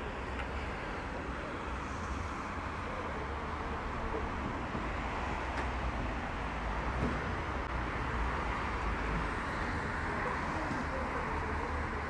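Steady outdoor background noise with a low rumble and no distinct events.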